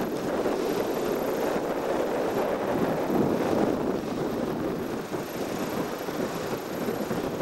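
Steady rushing noise of wind and rough water, with a motorboat running, as a rider is dragged through spray on a tow rope.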